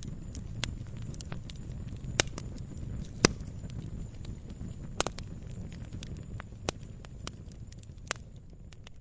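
Burning firewood crackling, with sharp irregular pops over a low steady rumble of the flames; the loudest pop comes about three seconds in.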